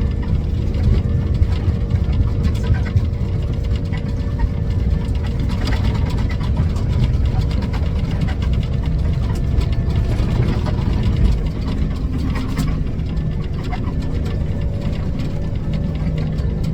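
Steady drone of an airliner's engines and air in the passenger cabin, a loud low rumble with a faint steady hum above it and small scattered clicks.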